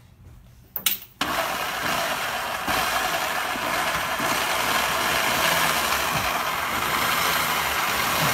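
PullzAll portable electric hoist switching on after a click and running steadily with a cylinder head hanging from its chain.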